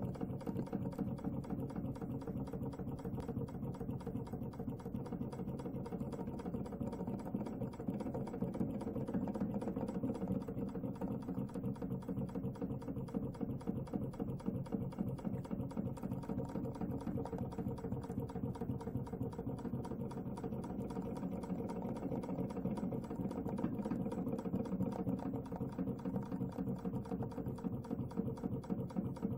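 Water-cooled model flame-licker (vacuum) engine running steadily: a rapid, even ticking as its valve snaps and its flywheel turns.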